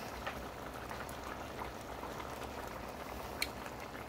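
Tilapia curry simmering in a large steel pot, a soft steady bubbling with faint scattered pops and one sharper click about three and a half seconds in.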